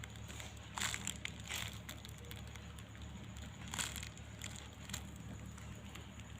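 Faint handling noises: a few brief scratchy rustles, clustered about a second in and again near four and five seconds, over a steady low background hum.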